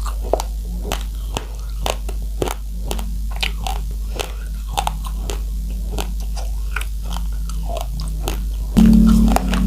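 Uncooked rice grains being bitten and chewed, with sharp, irregular crunches several times a second. Near the end a louder steady low hum comes in.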